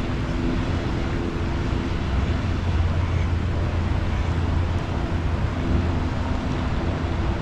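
A steady low engine drone, with a faint hum that fades about two seconds in and comes back near the end.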